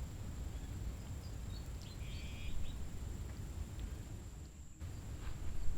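Outdoor background noise: a steady low rumble with a thin, steady high-pitched whine, and a brief chirping about two seconds in.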